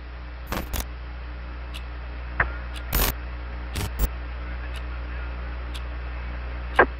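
Apollo 11 air-to-ground radio channel between transmissions: a steady hiss and low hum, broken by a handful of short clicks and crackles.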